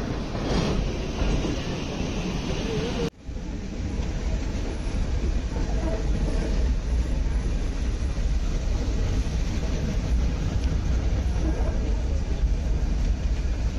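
Steam-hauled Nilgiri Mountain Railway toy train running, heard from aboard: a steady rumble of the carriages on the track, broken by a brief cut about three seconds in.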